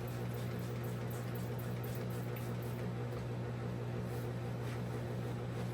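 A steady low hum, like a small motor or electrical hum, with a faint hiss and a few light high ticks, unchanging throughout.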